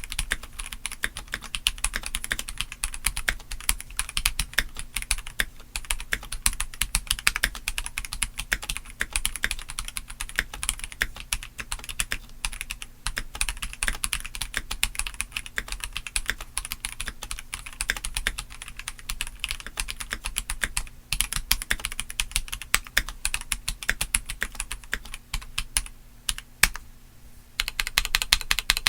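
Fast, steady typing on a stock Keychron C3 Pro, a gasket-mounted tenkeyless mechanical keyboard: a dense stream of key clicks. The typing pauses briefly near the end, then starts again.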